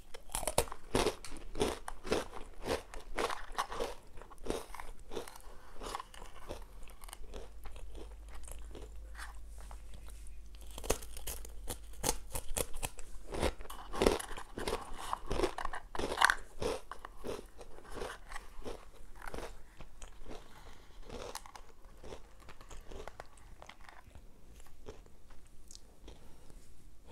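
Close-miked crunching and chewing of Nutella & Go breadsticks: dense crisp crunches, heaviest near the start and again around the middle, thinning out toward the end.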